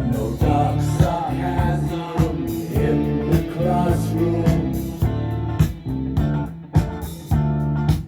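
A song with guitars over a steady bass-heavy beat, a wavering melody line running above them.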